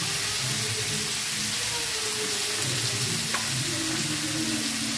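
Pumpkin, potato, pointed gourd and chickpeas frying in oil in a metal kadai over a gas flame turned low, a steady sizzling hiss.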